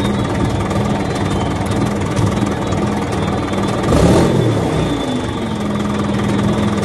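Truck engine running steadily at idle: an engine sound effect for a plastic toy oil tanker truck being pushed by hand. There is a brief louder swell about four seconds in.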